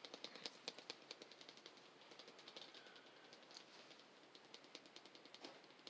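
Near silence with faint, irregular clicks and ticks, like trading cards being handled and set down on a table.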